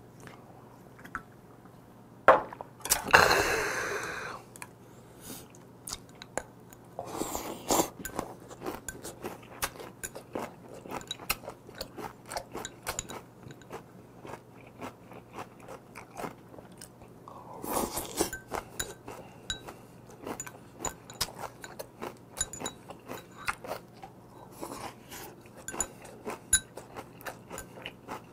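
Close-up chewing and crunching of raw squid and vegetables from a cold spicy squid soup, with small clicks of chopsticks and bowl. About two seconds in there is a sharp clack, followed by a loud breathy burst.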